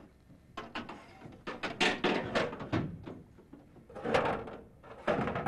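A run of irregular knocks and clattering thuds, with louder scraping or rustling bursts about two seconds in, about four seconds in and near the end.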